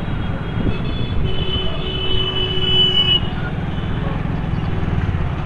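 Steady low rumble of a moving vehicle and street traffic. A horn sounds for about two seconds in the middle.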